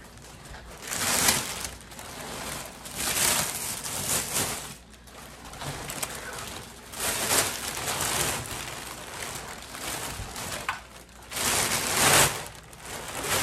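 Clear plastic wrapping crinkling and rustling as it is pulled off a bass drum, in several loud surges.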